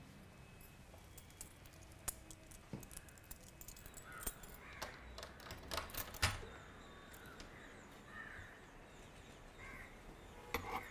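Quiet room with scattered small clicks and the clack of a door lock being worked by hand, loudest about six seconds in. Faint short bird calls sound a few times in the background.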